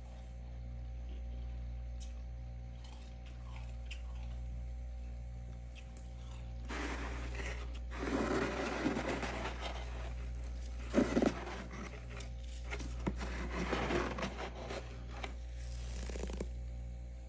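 Thick freezer frost being scraped and crunched by hand, rough scraping in several bouts that starts about seven seconds in and stops near the end, with a couple of sharp knocks about eleven seconds in. A steady low hum runs underneath.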